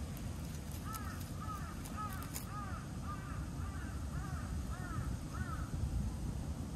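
A crow cawing in a quick series, about ten caws roughly two a second, over a steady low rumble.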